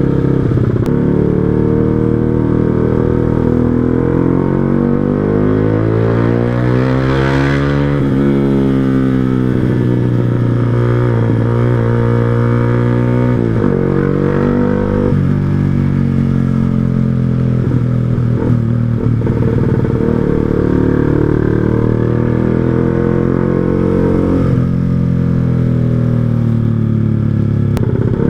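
Yamaha R15 V2's single-cylinder four-stroke engine running through an aftermarket Proliner TR1R Short silencer and 3Tech Racing header while riding. The revs climb a few seconds in and peak, drop back over the next several seconds, then settle into steady cruising with small rises and falls.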